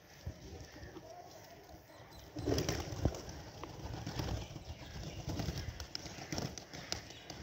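Domestic fantail pigeons flapping their wings and cooing, growing louder about two and a half seconds in with a run of sharp wing flaps.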